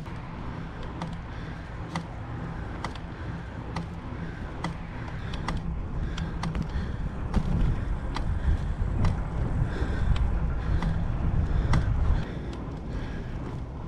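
Bicycle being ridden uphill, heard from a camera mounted on it: wind rumbling on the microphone, louder in the second half and dropping off suddenly just after 12 seconds, with light clicks from the bike roughly once a second.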